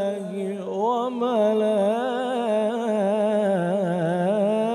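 A male reciter chanting the Quran in melodic tajwid style, drawing out the word "billah" in one long held phrase whose pitch winds up and down in rapid ornamental turns.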